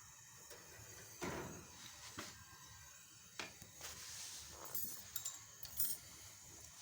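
About a dozen scattered clinks and knocks of small hard objects being handled, the loudest about a second in.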